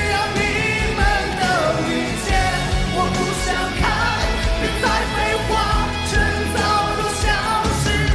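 Male singer performing a Mandarin rock-pop song live, the sung line bending and sliding over a loud full band with heavy bass and a steady drum beat.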